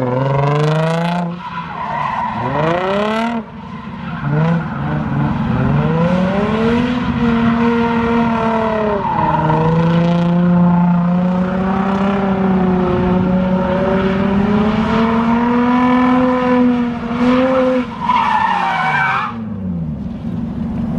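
A car drifting. The engine revs up in repeated rising sweeps, then is held at high revs for a long stretch while the tyres spin and skid. A wavering tyre squeal comes near the end, then the revs fall away.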